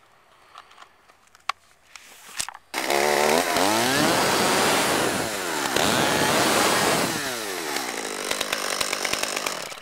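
Stihl 200T top-handle two-stroke chainsaw running hard with an Oregon PowerSharp fitted, its bar tip pressed against a log to sharpen the chain. After a few quiet seconds with some handling clicks, the engine comes in suddenly at high revs and holds for about four seconds. Then the revs fall and it runs lower until it stops at the end.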